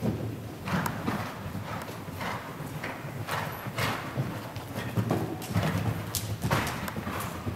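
Horse hoofbeats on the soft sand footing of an indoor riding arena, irregular soft thuds as ridden horses move past close by.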